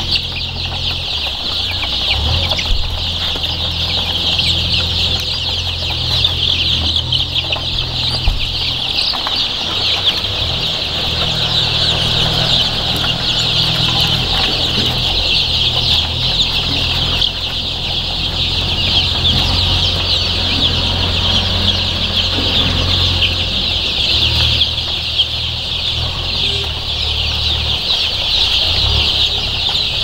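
A large flock of young Aseel chicks peeping continuously, with many high chirps overlapping into one dense chatter.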